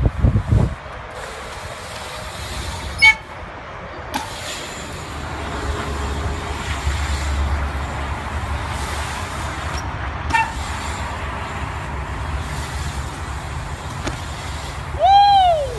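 BMX bike tyres rolling on a concrete skatepark bowl, a steady low rumble broken by a few sharp metallic clicks that ring briefly. Near the end comes a loud, short pitched toot that rises and then falls.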